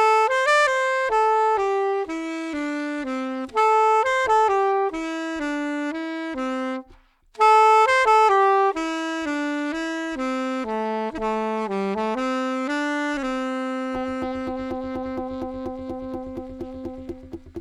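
Solo saxophone playing a slow melody in two mostly descending phrases, with a brief break about halfway. It ends on a long held low note that slowly fades.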